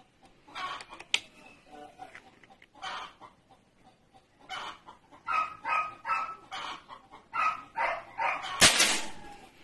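Chicken clucking in a run of short calls, about two a second. Near the end comes a single loud, sharp crack, the loudest sound here.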